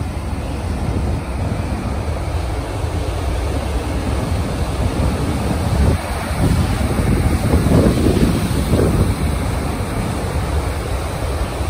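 Heavy storm surf breaking and churning in nor'easter seas, with gusting gale-force wind buffeting the microphone. The wash of breaking waves swells louder about six to nine seconds in.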